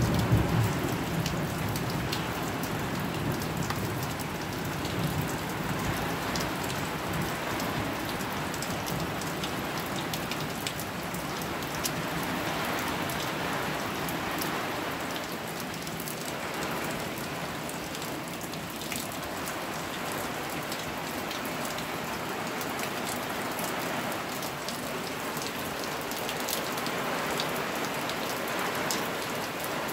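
Steady heavy rain of a thunderstorm falling, with many close, individual drop hits in the hiss. A low rumble of thunder dies away in the first few seconds.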